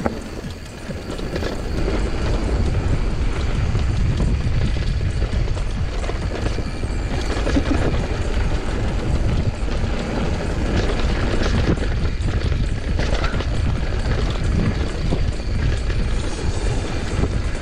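Mountain bike riding fast down a dirt trail: wind rumbling over the action camera's microphone, with the tyres running over dirt and the bike rattling and clicking over bumps. It grows louder about two seconds in.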